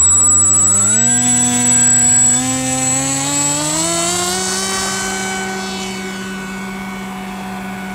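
Skywalker RC plane's electric motor and propeller powering up for takeoff. The buzz rises in pitch over the first few seconds, then holds steady and grows a little quieter. A high whine sits over it for the first couple of seconds.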